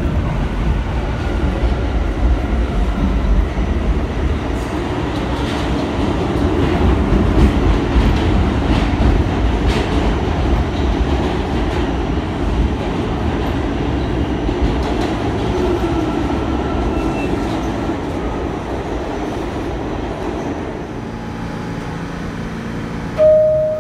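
R46 subway car running through a tunnel: a steady rumble with scattered clicks of the wheels over rail joints. Near the end the car stands at a station, quieter, and the door-closing chime starts to sound.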